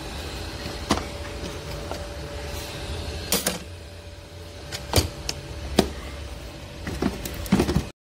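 Roborock S7 MaxV robot vacuum running across a wooden floor, a steady motor hum with a held tone. Several sharp knocks come through it at irregular intervals, and the sound cuts off suddenly just before the end.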